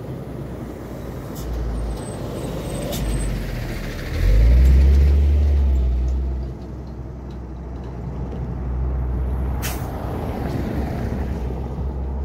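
Road traffic passing close by: a truck goes past with a loud low rumble from about four to six and a half seconds in, then a minibus van draws near toward the end with a steadier engine rumble.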